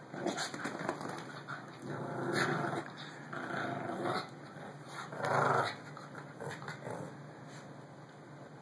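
Small dogs growling in play while tugging at a toy between them, in several short bouts, the loudest about five seconds in.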